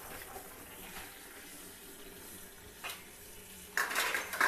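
Tap water running steadily into a plastic bucket of red amaranth leaves, with a brief louder burst of noise near the end.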